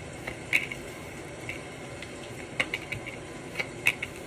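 Tarot cards being handled: a handful of short, sharp light clicks and snaps, a few close together near the end, over a steady faint background hiss.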